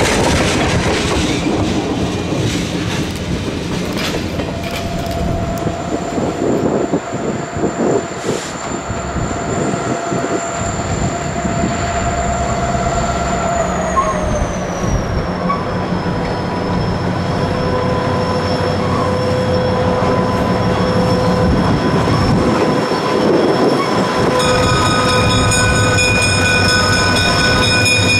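A passenger train rolling past, wheels clicking over the rail joints, then the approaching Northern Pacific 3617 train led by its EMD SD45 locomotive, with a steady high whine that drops in pitch about halfway through. Near the end the SD45's P3 air horn starts sounding as a steady chord and holds.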